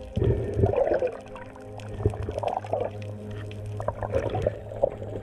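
Muffled underwater water noise picked up by a dive camera in its housing: irregular sloshing and bubbling with a few faint clicks, and a steady low hum from about two seconds in.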